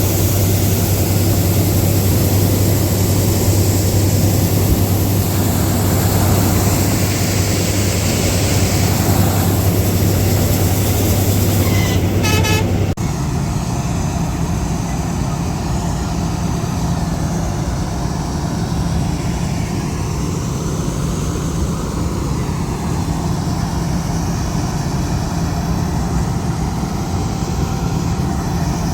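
Combine harvester engine running steadily with a deep hum. About twelve seconds in there is a brief horn-like toot, and just after it the engine note drops and changes suddenly.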